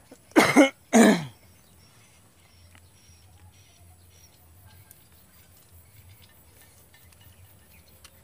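A man coughs twice in quick succession, loud and short, about half a second and a second in. Then only faint background remains, with a few small high chirps.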